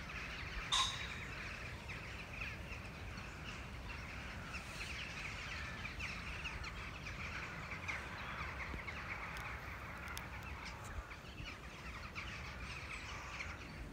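Many birds calling together at dusk as they settle to roost, a dense continuous chatter, with one loud sharp sound about a second in and a steady low rumble underneath.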